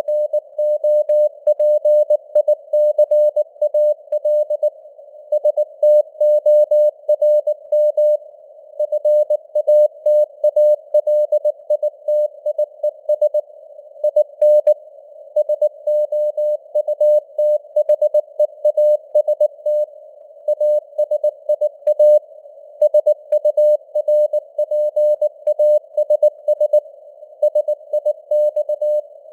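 Morse code sent at 19 words per minute: a single steady-pitched tone keyed on and off in dots and dashes, with a faint hiss of simulated radio noise between the characters.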